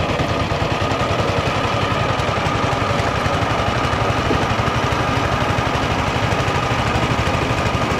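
A small engine idling steadily, with a fast, even low throb.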